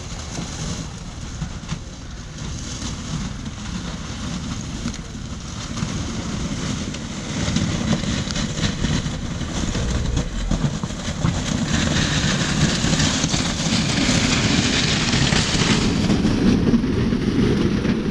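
Jeep Wrangler crawling down a rocky ledge: the engine runs low while the tyres crunch over loose rock, growing louder as it comes closer.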